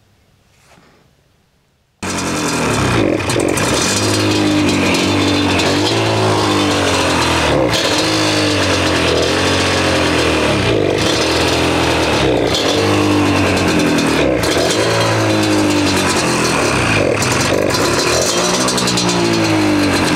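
Yamaha Banshee's twin-cylinder two-stroke engine starts up about two seconds in, then is revved up and down over and over while its carburetors are being tuned. Its right carburetor is flooding, with fuel pouring from the drain hose.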